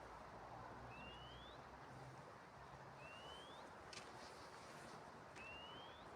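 A bird repeating a short, thin upslurred whistle three times, about every two seconds, over faint outdoor background hiss, with a single sharp click about four seconds in.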